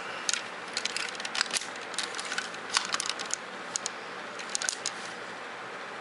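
Hard plastic parts of a transforming robot toy clicking and rattling as they are moved into place by hand. Scattered sharp clicks run through the first five seconds, then only a steady background hiss remains.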